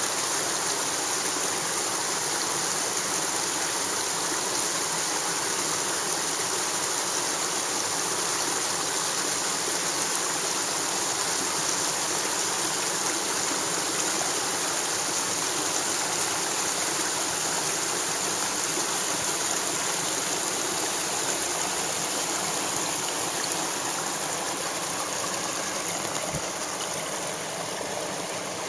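Freshwater stream running over boulders into a rocky pool: a steady rush of flowing water, easing slightly over the last few seconds.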